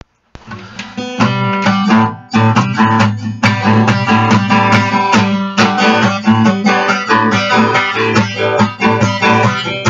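Guitar strummed in a steady rhythm, the instrumental intro to a song. It comes in softly, breaks off for a moment about two seconds in, then carries on evenly.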